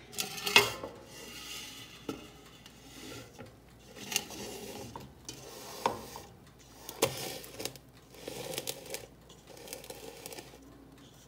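Thick corn batter poured and scraped out of a plastic bowl into an aluminium tube pan: a soft scraping noise broken by several sharp knocks of the utensil and bowl against the pan.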